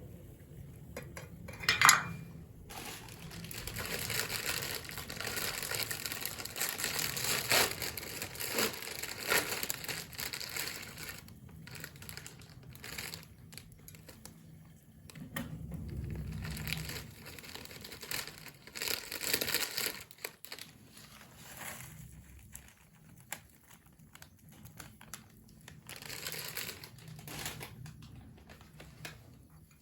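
Crinkling and crumpling handling noise that comes and goes in long stretches, with a sharp knock about two seconds in.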